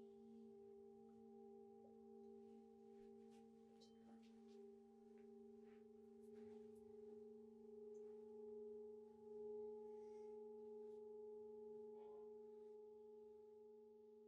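Faint sustained ringing drone of a few steady tones held together, one of them pulsing slowly, with light scattered clicks over it.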